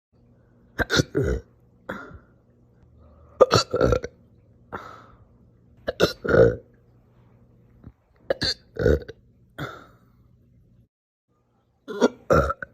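A person hiccuping repeatedly, brought on by eating cereal too fast. There are five bouts, roughly two and a half seconds apart, each a quick cluster of two or three sharp catches in the throat.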